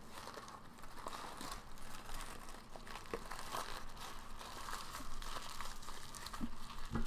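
Paper burger wrapper crinkling and rustling as it is handled and folded, with a soft thump near the end.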